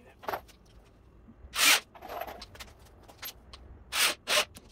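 A handful of short scraping swishes as the rack's PVC parts and plastic snake bins are shifted and adjusted by hand, the loudest about a second and a half in and two close together near the end.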